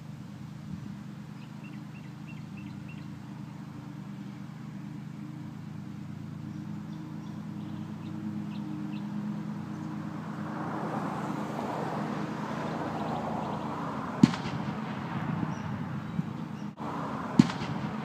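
Hustler Super Z zero-turn ride-on mower's engine running steadily at speed, growing louder as the mower comes closer. Two sharp cracks about two-thirds of the way in and near the end stand out as the loudest sounds.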